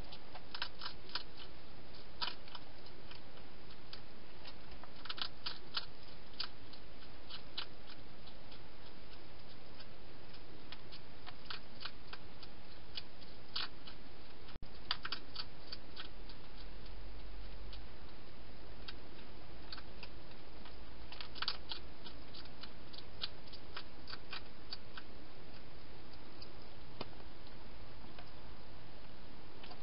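A European hedgehog chewing food, heard as irregular crisp crunches and clicks, some single and some in quick runs, over a steady hiss.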